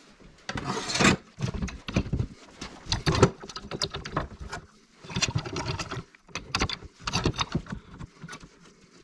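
Thin sheet-steel gusset plates and steel F-clamps being handled and tightened against a steel tube on a workbench: an irregular run of metal knocks, clicks and scrapes, with a longer scrape about half a second in.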